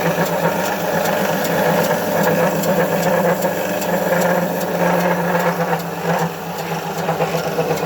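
DeWalt DW100 benchtop bandsaw's electric motor running steadily just after being switched on, a loud hum with a fast, even rattle.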